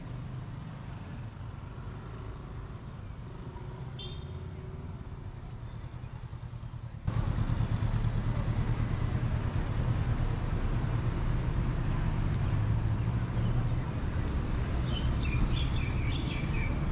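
Road traffic on a city street: a steady low rumble of passing vehicles, which jumps suddenly louder about seven seconds in. A few short high chirps come near the end.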